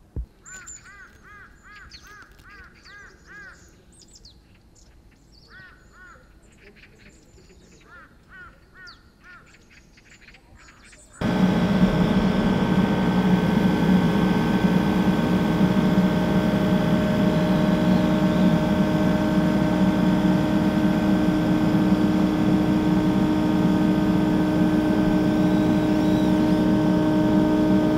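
Birds calling over a quiet open field, in quick runs of short repeated chirps. About eleven seconds in, a loud steady drone of many held tones starts abruptly and carries on unchanged.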